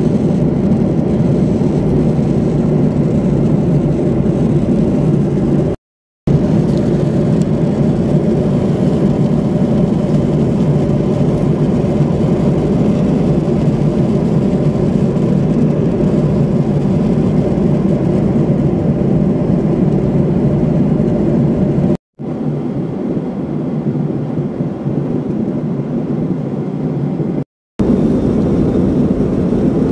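Jet airliner cabin noise in cruise: the steady rush of engines and airflow heard from a window seat. It cuts out briefly about six seconds in, and near the end goes quieter and thinner for a few seconds before cutting out again.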